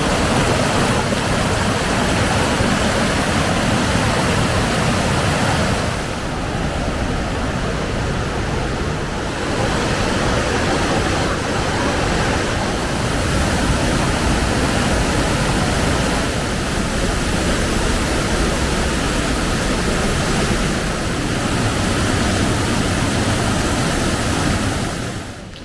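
Steady rush of the Veliki Slap waterfall, water pouring down without a break.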